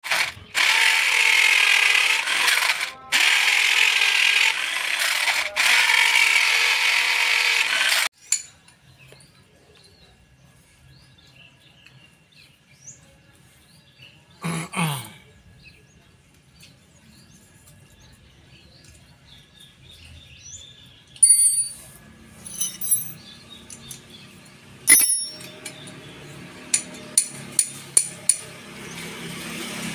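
Electric drill with a mortising bit boring into a wooden plank, running loud for about eight seconds with a few brief stops, then cutting off. Afterwards come scattered light metallic clinks and clicks from the metal drill adaptor being handled, with a quick run of them near the end.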